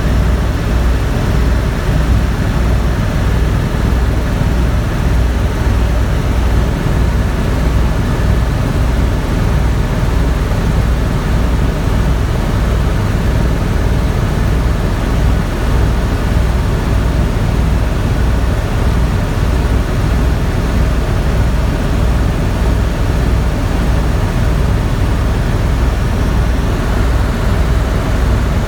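Tour helicopter in flight: steady engine and rotor noise with a low, even, rapid beat from the blades.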